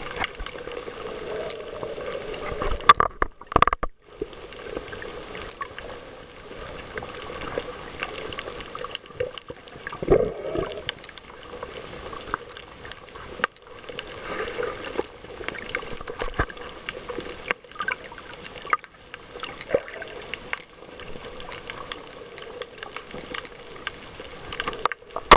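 Steady rushing and bubbling of water around a camera held underwater, with scattered small clicks and a few louder swells. The sound briefly drops out about three seconds in.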